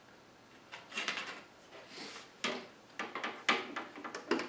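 An AeonAir dehumidifier's removable plastic air filter being slid back into its slot behind the intake grille: a string of light plastic clicks and scrapes.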